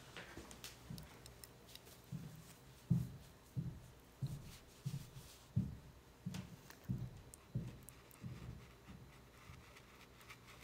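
Quiet handling noises from watercolour painting with a brush: a string of soft, low knocks about every two-thirds of a second, with faint clicks.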